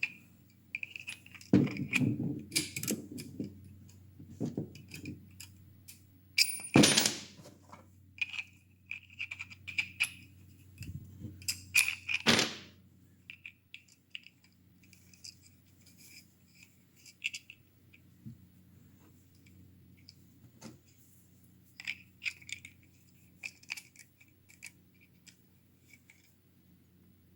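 Small parts handled and fitted by hand: irregular clicks, taps and light scrapes of a metal sear and sear spring being worked into a 3D-printed plastic paintball trigger frame. The sounds are busiest in the first half and thin out later.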